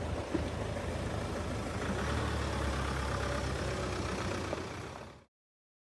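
A steady, low engine-like rumble with a hiss over it, fading out about five seconds in.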